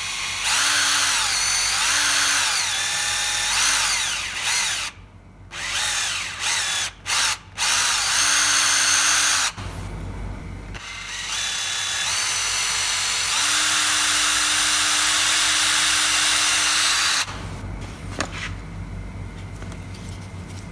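Power drill boring small holes into rubber plugs set in the frame's welded mounting nuts, so they can be levered out. It runs in several short bursts, its pitch rising and falling with the trigger, then in one steadier run of about five seconds that cuts off a few seconds before the end.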